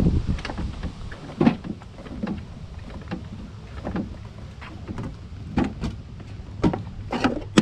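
Wooden children's play-kitchen parts knocking and rattling as they are carried and handled: irregular knocks, with a quick cluster of louder, sharper knocks near the end.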